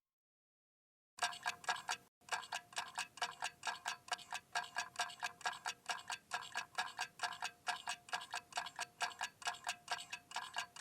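Mantel clock ticking in a fast, even rhythm. It starts about a second in, with one short break soon after.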